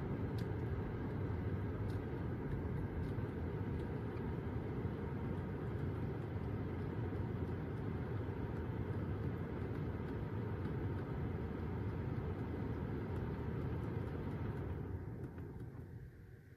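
Car climate-control blower fan running hard, a steady rush of air from the dash vents, that winds down and fades near the end as it is switched off.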